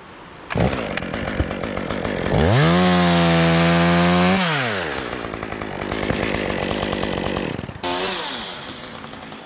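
Chainsaw cutting into dead red oak: it starts about half a second in, revs up to a high steady whine for about two seconds near the middle, then drops back and keeps running before falling away near the end.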